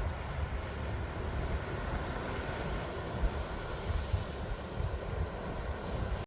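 Ocean surf washing on the shore, a steady rushing noise, with wind buffeting the microphone in a low, fluttering rumble. It cuts off suddenly at the end.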